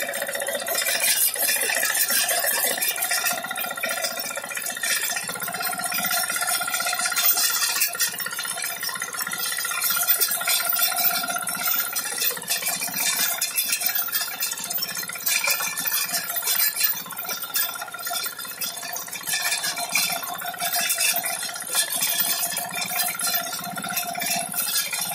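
BCS power tiller running steadily under load with its sugarcane stubble cutter attachment spinning, chopping cane stubble and trash with a continuous rattling clatter over a steady mechanical whine.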